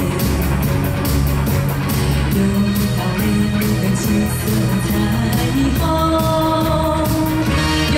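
Live pop-rock band playing a medley of children's cartoon songs: a female vocalist sings over electric guitar, keyboard and a steady drum beat.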